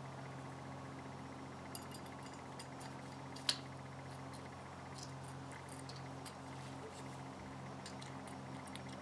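Faint small clicks and taps of a carburetor float bowl being handled while its old gasket is pulled off, with one sharper click about three and a half seconds in, over a steady low hum.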